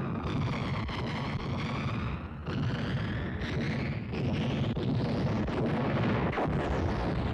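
Artillery fire: a continuous heavy rumble of guns firing, with sharper blasts standing out now and then.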